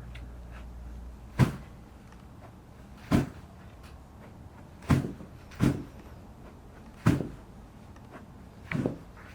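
A series of sharp thumps: five strong ones at irregular gaps of about one to two seconds, two of them close together in the middle, then a softer one near the end.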